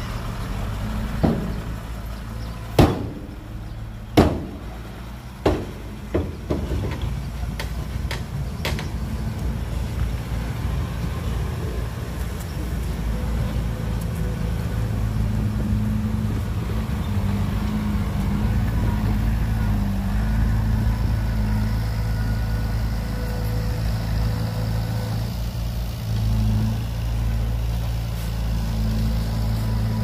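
Heavy diesel engines of a bulldozer and dump truck running steadily, with about six sharp clanks in the first nine seconds, the loudest around three and four seconds in.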